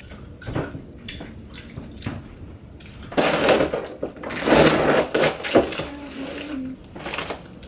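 Rustling and scraping as a desk's cardboard box and packaging are handled, in two loud bursts a little after the middle, with a few scattered clicks before.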